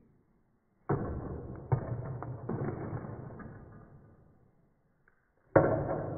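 Ping-pong ball striking the table and plastic cups during a trick shot, heard as deep, dull thuds with long dying tails. Three hits come about a second in, close together, and a fourth comes near the end.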